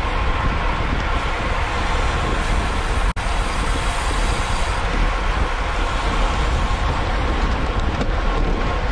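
Steady wind rush on the microphone of a camera carried on a bicycle at race speed, deep and continuous, broken by a split-second dropout about three seconds in.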